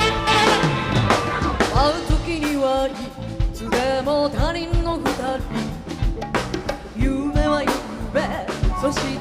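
A woman singing into a microphone with a live band: drum kit, electric bass, keyboards and saxophone, with a steady beat.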